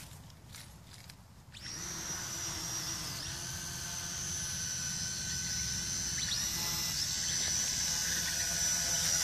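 A Mould King Super S 33041A mini quadcopter's small electric motors and propellers whining steadily. The whine starts suddenly about one and a half seconds in, grows gradually louder and dips briefly in pitch twice.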